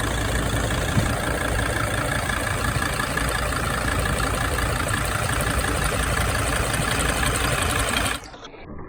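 2006 Sprinter van's engine running at idle with a recurring tick, the ticking noise that has come back. The loud running sound cuts off sharply about eight seconds in.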